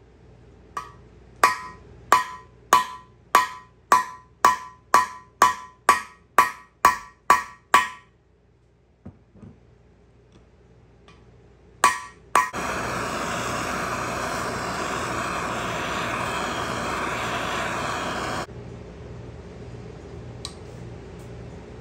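Hammer blows on steel, about a dozen in a row at a bit under two a second, each with a short metallic ring, as a small-block Chevy 350 block plug is driven out. After a pause come two more blows, then a loud steady rushing noise for about six seconds that drops to a quieter steady noise.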